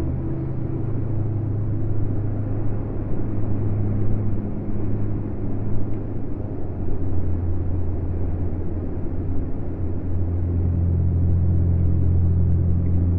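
A steady, low rumbling drone in a dark ambient soundtrack, with a hiss-like haze over it and no clear melody.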